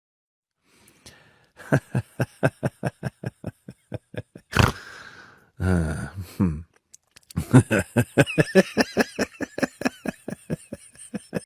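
A person laughing hard in quick rhythmic bursts, about four or five a second, in two long runs. Between the runs come a sharp loud burst and a short drawn-out voiced sound.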